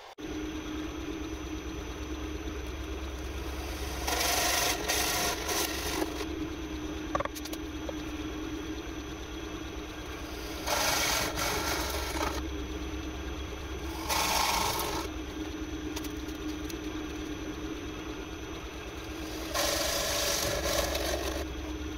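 Bench pillar drill running steadily, its bit cutting into a wooden board four times, each cut a second or two of louder rasping over the motor's hum.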